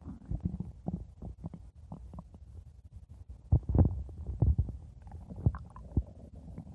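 Stomach growling: a string of short, irregular gurgles and pops, with a few louder gurgles a little past the middle.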